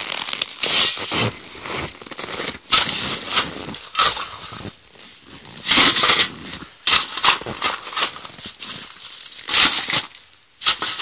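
Shovel scraping into a snow-covered coal pile and tipping coal into a bucket, a series of scrapes and rattles a second or two apart.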